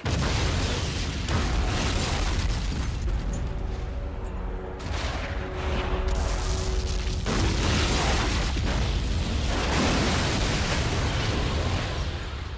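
Film soundtrack of a ship exploding: a sudden blast at the start, then a heavy continuous rumble broken by several further blasts, with background music of held notes beneath.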